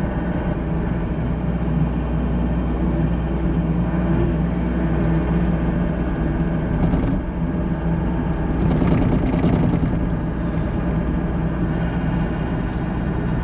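Diesel engine of an excavator running steadily, with a brief louder, rougher stretch about nine seconds in.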